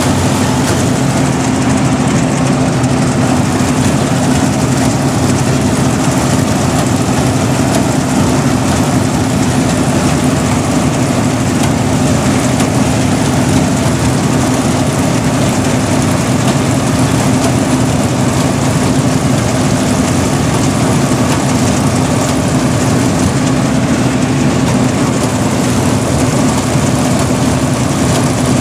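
Engine of a rice harvesting machine running steadily and loudly at constant speed.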